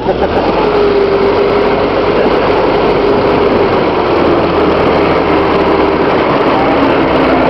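Ford Model T snowmobile's four-cylinder engine running hard while the machine climbs a hill, its pitch slowly dropping under the load.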